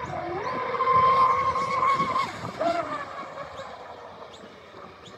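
Electric RC speedboat's brushless motor and propeller whining at speed on 6S as the boat passes. The whine is loudest about a second in, drops in pitch at about two and a half seconds, then fades away.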